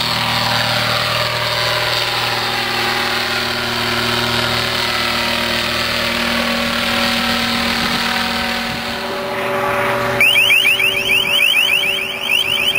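Unmanned helicopter's engine and rotor running steadily as it lifts off and flies overhead, with some of its tones slowly falling in pitch. About ten seconds in, a louder electronic warning tone starts: rapidly repeated rising chirps, about seven a second, lasting about three seconds before cutting off.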